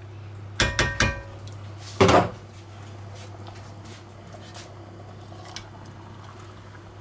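Cookware clatter: metal utensils and a metal roasting tray clinking with a short ringing against an enamelled cast-iron pot about half a second to a second in, then a louder clatter about two seconds in. After that come only faint taps of the pork roast being set into the pot with tongs, over a steady low hum.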